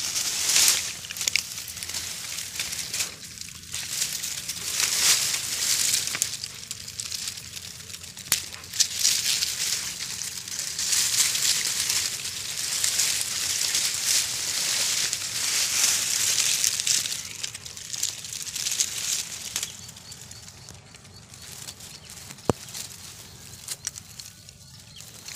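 Leaves and twigs rustling and crackling in uneven surges as someone pushes through dense brush, with a few sharp snaps; the rustling dies down near the end.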